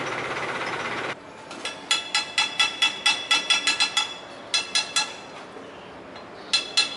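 A hammer strikes the metal propeller of a long-tail canal boat, the boatman adjusting the blades. The strikes are sharp and ringing, about five a second, in runs broken by short pauses. A steady noise fills the first second and cuts off abruptly.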